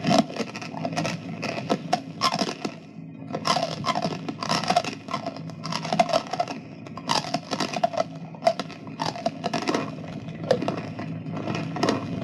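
Sound-effect recording of creatures devouring someone: a dense run of crunching, cracking and chomping noises mixed with short, strange calls that fall in pitch. The effect stands for hungry Martians eating an astronaut.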